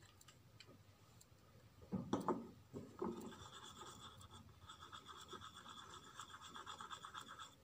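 White plastic spoon stirring a thick mix of glue and pink paint in a plastic tub. A few louder knocks come about two seconds in, then steady, rapid scraping of the spoon against the tub from about three seconds in.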